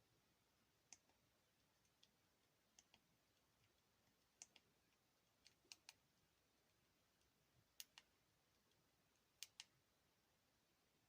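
Faint clicks of a Sony Ericsson K508i mobile phone's keypad buttons being pressed, about a dozen spread irregularly, many in quick pairs.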